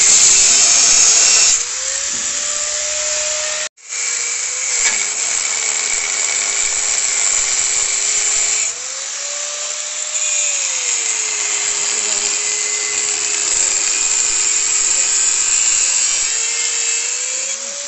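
Electric angle grinder with a cutting disc cutting through a steel bumper, its motor whine dropping in pitch as the disc bites and rising again as it frees, over the steady hiss of the cut. The sound briefly cuts out just before four seconds in.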